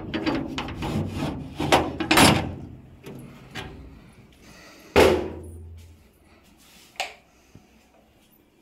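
Padlock and sliding steel bolt on a metal door being unlocked and drawn back: a run of rattling clicks and scrapes for about three seconds, then one loud bang about five seconds in as the door is pushed open, and a single sharp click near seven seconds.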